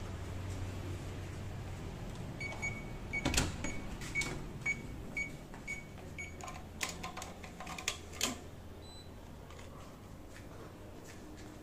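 Electronic keycard door lock beeping, a run of short high beeps about two a second for several seconds, mixed with the clicks and knocks of the latch and door. A quick cluster of clicks follows as the room lights come on.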